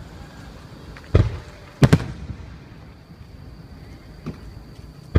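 Fireworks shells bursting in the air: a bang about a second in, a louder sharp double crack just after, a lighter pop around four seconds, and another bang at the end.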